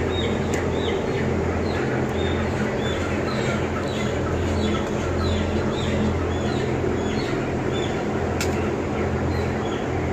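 Many broiler chickens cheeping, short high calls repeating throughout, over a steady low electrical hum and running machinery noise from the blower panel and fans.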